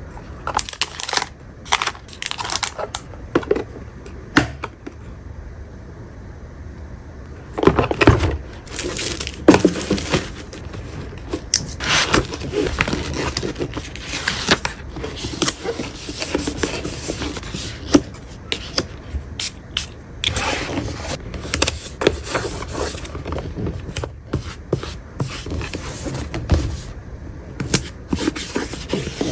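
Stationery and small items being handled and packed by hand: irregular scraping and rustling with many short sharp clicks and taps, pausing briefly a few seconds in.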